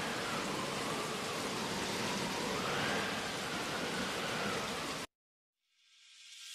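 Steady hissing noise, like rain, with a faint wavering high tone above it, cutting off abruptly about five seconds in.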